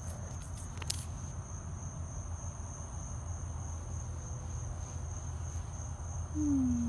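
Crickets chirring steadily in a night-time field over a constant low rumble, with one sharp click about a second in. Near the end comes a short, falling low hum.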